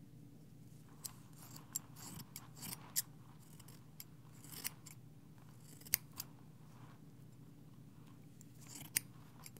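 Haircutting scissors snipping close to a binaural microphone: irregular faint snips, with sharper ones about three, six and nine seconds in.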